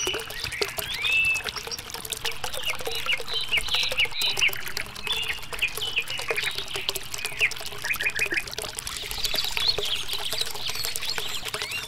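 A thin stream of water pouring and trickling from a miniature hand pump's tube into a small, shallow toy pool, with birds chirping over it.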